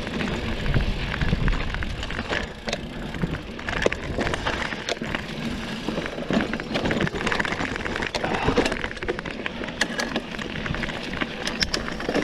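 Specialized Rockhopper hardtail mountain bike riding down a dirt singletrack: tyres rolling and crunching over the dirt, with a constant clatter of sharp rattles and clicks from the bike as it bounces over the rough trail.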